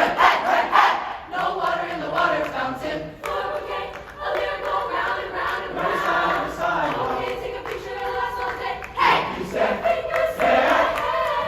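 High school chamber choir singing in harmony, several voice parts moving together without clear words.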